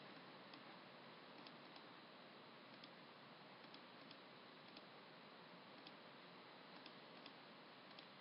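Near silence: a faint steady hiss with about a dozen faint, irregular computer mouse clicks.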